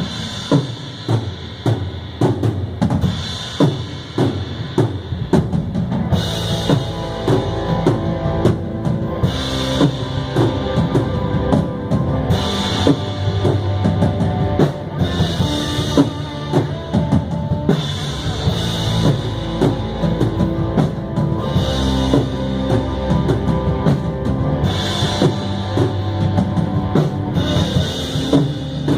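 A rock band playing a song in rehearsal, led by a drum kit: steady bass-drum and snare hits, with cymbal crashes every few seconds, over sustained guitar and bass.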